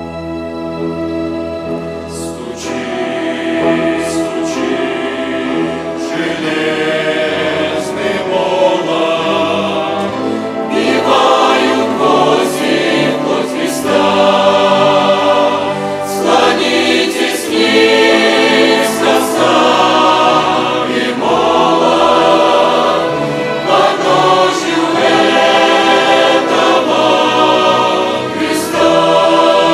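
Chamber choir singing a hymn in Russian, accompanied by a violin orchestra. The choir's voices come in about two seconds in over the strings, and the music grows louder.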